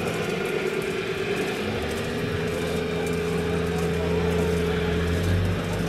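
Radio-controlled scale construction models running: a steady engine-like hum with a held tone over it, the low rumble building from about a second and a half in and strongest near the end.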